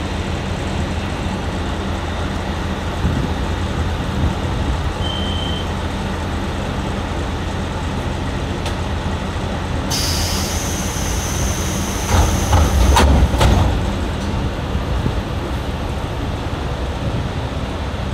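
KiHa 38/37 diesel railcar idling at a station, a steady low engine hum. A short high beep comes about five seconds in. About ten seconds in a sudden hiss of compressed air starts and lasts some three seconds, with a few knocks and a louder engine rumble as it ends.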